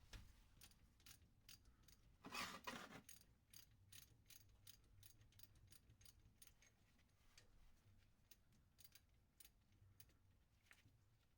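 Faint clicks and ticks of metal hand tools, irregular and a few per second, with a short scraping rustle about two seconds in.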